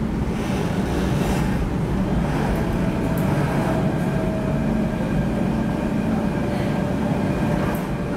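Steady cabin noise of an MTR Tung Chung line K-train electric multiple unit under way: a low running rumble with faint, steady tones over it.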